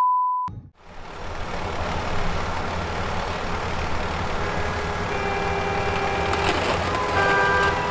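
A short steady bleep at the very start censors a swear word. Then a steady low rumble with hiss: engine and road noise heard from inside a moving car.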